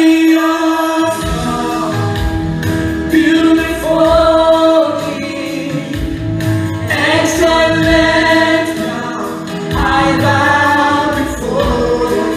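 Two women singing a gospel worship song into microphones, their voices amplified over an instrumental accompaniment with a steady low beat.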